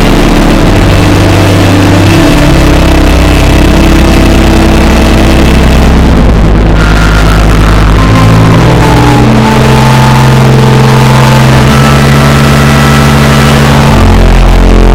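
Church organ playing slow, loud chords, heavy in the bass, each held for a few seconds before moving to the next.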